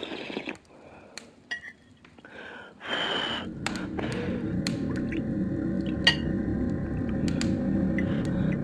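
Audio-drama sound effects: a few scattered sharp clicks and knocks, then about three seconds in a steady low noise starts, with sharp crackles and clicks running through it. The loudest crack comes a little after six seconds.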